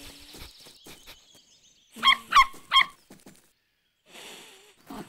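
Soft quick sniffing ticks, then three short, loud cartoon animal calls in quick succession about two seconds in, each bending in pitch.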